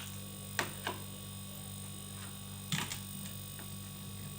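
Steady low hum of a refrigerator compressor running, broken by a few sharp clicks: two about half a second in and a quick cluster a little before three seconds.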